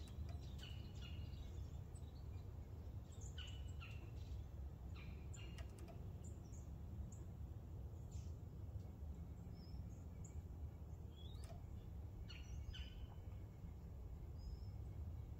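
Faint background of scattered short bird chirps over a low, steady rumble.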